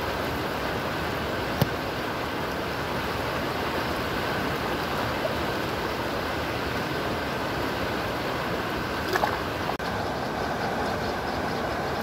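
River water rushing steadily over shallow rapids, a constant even hiss of flowing water. A sharp click sounds about one and a half seconds in, two more come near nine seconds, and the sound drops out for a moment just before ten seconds.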